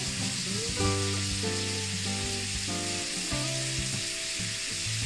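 Beef steak rolls sizzling steadily in a hot pan, with background music of held notes under the sizzle.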